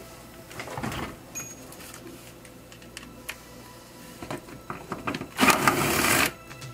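A cordless power driver with a 10 mm socket runs for about a second near the end, spinning out a bolt from the plastic engine undercover. Before it come a few light clicks and knocks as the tool and panel are handled.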